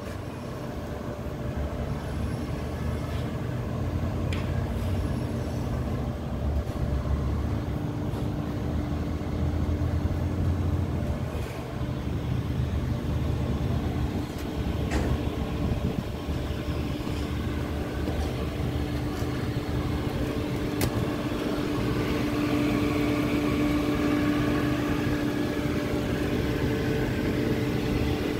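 Steady mechanical drone of chiller-plant machinery running, with a steady hum that grows louder in the second half and a few faint clicks.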